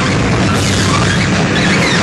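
Loud live noise-rock band playing: electric guitar and drums with cymbals in a dense, unbroken wall of noise.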